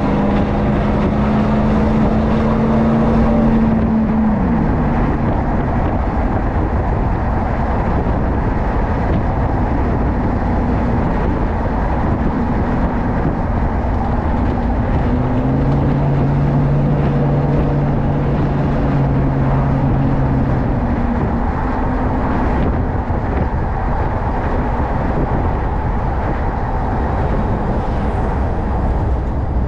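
Chevy Silverado 1500's 5.3L V8 droning through a Flowmaster 40 Series muffler while the truck is driven, over a steady rush of road noise. The engine note holds steady, drops in pitch about four seconds in, and a steady drone rises again for several seconds past the middle.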